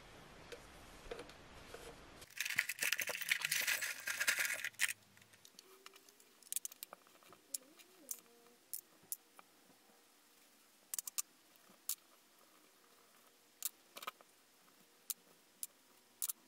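Small steel bicycle parts (nuts, bolts, axles and bearing races) tipped out of a jar onto a towel: a dense metal clatter for about two seconds, then scattered single clinks as the parts are picked over and sorted.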